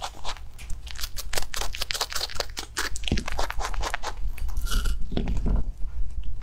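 A rabbit chewing crisp cranberries fed on a skewer, a rapid run of close-miked crunches several to the second.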